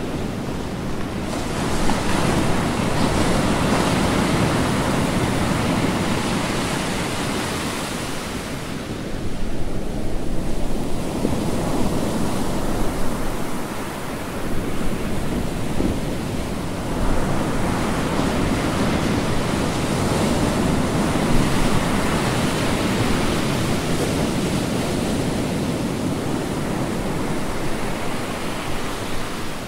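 A loud, even rushing noise with no distinct tones, swelling and easing a few times.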